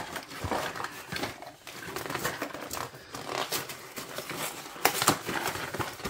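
Frozen ready-meal packaging being opened and handled: irregular crinkling and rustling of cardboard and plastic, with a louder rustle about five seconds in.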